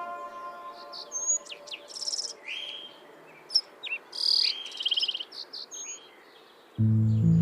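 Small birds chirping and trilling: many short, high calls of several kinds, some as quick rattling trills, some as brief whistles. Background music with low notes comes back in near the end.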